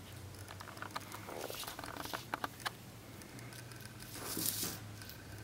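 Light clicks and taps of hands handling a braided cord lanyard, with a short rustle about four seconds in, over a low steady hum.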